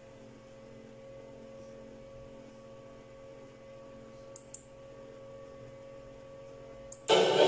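Faint steady hum with a couple of soft clicks in the middle. Near the end, orchestral music with violins starts abruptly and loudly.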